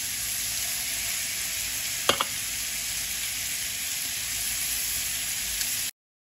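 Pork ribs and diced bacon sizzling steadily as they sear in a frying pan. A couple of sharp clicks from the metal tongs turning the meat come about two seconds in, and the sizzle cuts off abruptly near the end.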